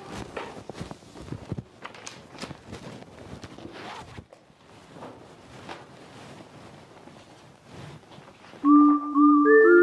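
Footsteps and a chair near the start, then paper rustling as notebook pages and loose sheets are leafed through, with a few soft knocks. Near the end, organ-like keyboard music comes in suddenly and loudly with sustained notes.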